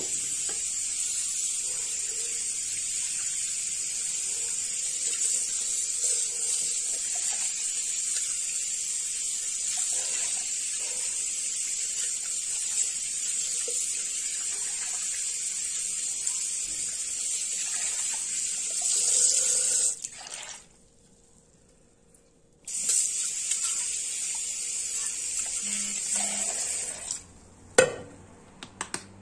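Water running steadily from a kitchen tap as a pan is rinsed under it. The tap is shut off about two-thirds of the way through and turned on again about two seconds later, then shut off near the end, followed by a sharp knock.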